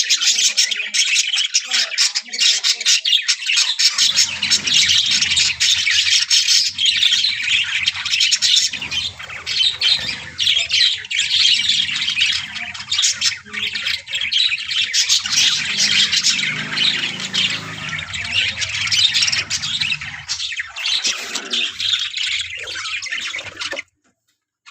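A colony of budgerigars chattering and squawking without a break, a dense mix of chirps and harsh calls. A faint low hum sits underneath through most of it, and the sound cuts off abruptly near the end.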